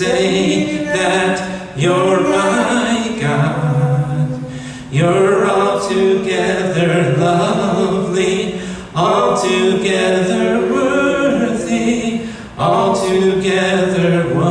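Voices singing a worship song in long held phrases, with short breaks between phrases every three to four seconds.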